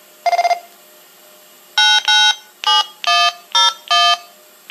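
DTMF touch-tones sent over a two-way radio to the repeater controller, a command to turn off logic port 1: one short beep, then six short tones of differing pitch in quick succession.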